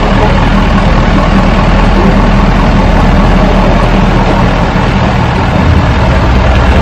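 An engine idling steadily, a loud, even low drone.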